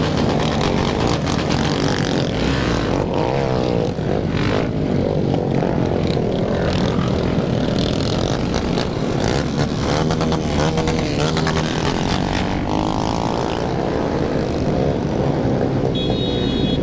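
A large group of motorcycles running and revving together: a dense, continuous mass of engine noise with many pitches rising and falling over each other. A short high steady tone sounds near the end.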